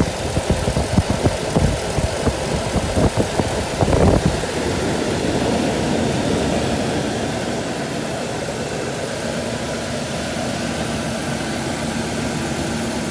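2003 Ford Ranger's 3.0-litre V6 idling after a new coil pack was fitted against a cylinder 5 misfire (code P0305). Uneven, heavier pulses for about the first four seconds, then it settles into a steady idle that the owner thinks is idling pretty good.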